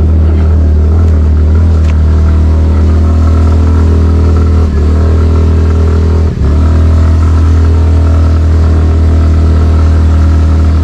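Suzuki Skydrive Crossover's 113cc single-cylinder engine running steadily under load as the automatic scooter pulls uphill at low speed on a dirt trail, with two brief dips in its note about halfway through.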